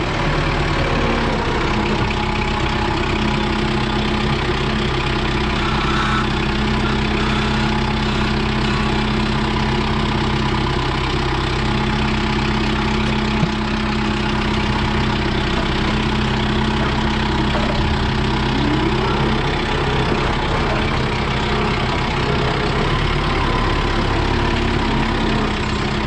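Compact tractor engine running steadily as the tractor drives with a front-loader full of poles. A single sharp knock about halfway through.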